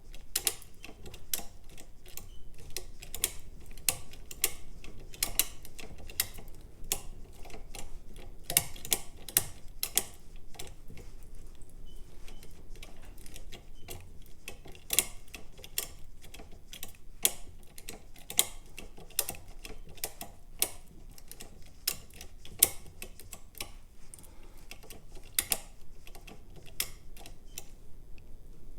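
Small irregular metallic clicks of a lever lock being picked with an over-lifter: the levers being lifted and dropping back, and the pick and tension tool ticking inside a Union 5-lever curtain lock as the levers catch on false gates.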